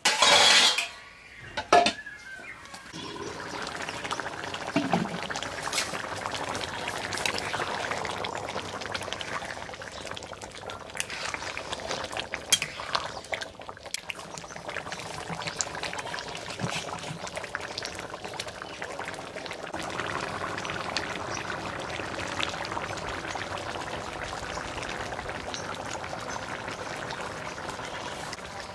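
Metal lid and spatula clatter against the pan at the start, with a sharp clank about two seconds in. Then beef and eggplant curry simmers and bubbles steadily in the open pan.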